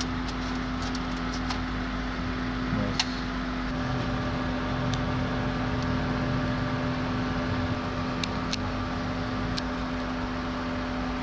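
Steady mechanical hum with one strong steady tone, and a few short sharp clicks of small metal parts being handled, about 3, 5, 8 and 9.5 seconds in.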